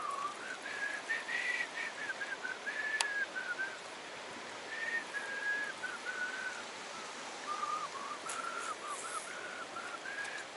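A person whistling a slow, wandering tune of short notes that step up and down, with a pause partway through, over a steady outdoor hiss. One sharp click about three seconds in.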